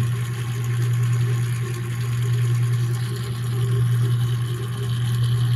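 A steady low machine hum that runs on without change.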